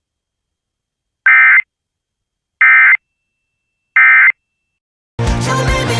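Emergency Alert System end-of-message data tones: three identical short buzzy bursts of SAME digital tones, each under half a second and about 1.3 s apart, closing the alert. Loud music starts near the end.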